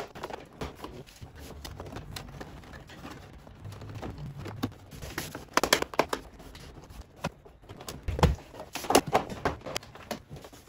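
Rustling and clicking from a long wire being handled and pulled along a car's door sill and plastic trim, with irregular bursts of handling noise.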